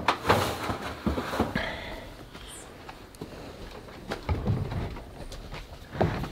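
Irregular knocks, clicks and scrapes of a long PVC pipe being handled and pushed into the lid opening of a plastic rainwater tank, loudest in the first second or so and with another knock near the end.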